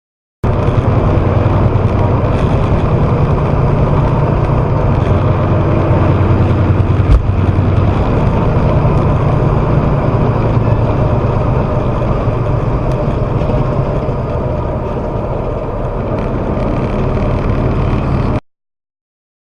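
A vehicle on the move: steady low road and engine rumble, with a single sharp bang about seven seconds in. The sound cuts off abruptly near the end.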